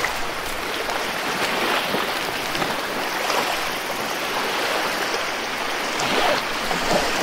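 Moving water rushing and splashing steadily, with many small splashes throughout.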